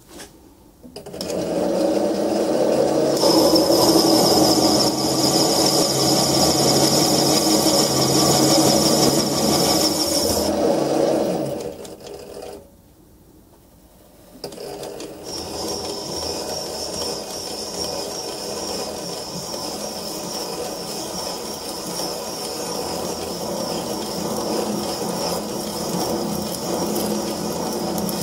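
Sieg SC2 mini lathe running in reverse while a form tool cuts a groove into a spinning aluminium bar: motor whine and cutting noise with no chatter. The cut dies away about eleven seconds in, goes quiet for a couple of seconds, then the lathe runs again with a steady high whine.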